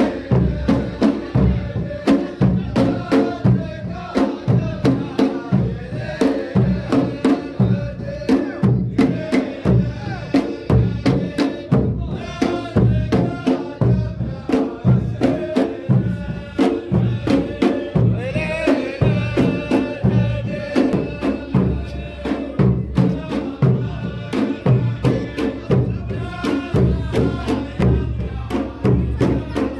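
Saudi ardah folk performance: a troupe of drums beating a steady, even rhythm while a group of men chant in unison over it.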